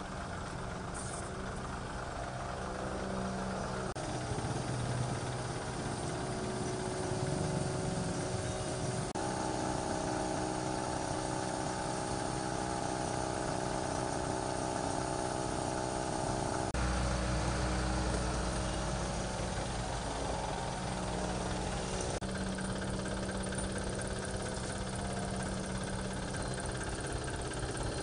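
Engine idling steadily, running the whole time; the sound changes abruptly several times, the pitch and the low rumble shifting from one stretch to the next.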